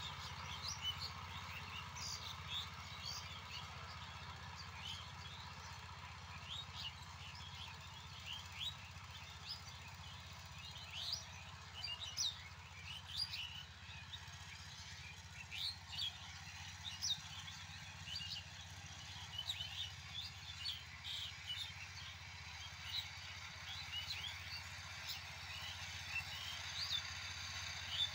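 Birds chirping: many short, quick high calls scattered throughout, over a faint steady low hum.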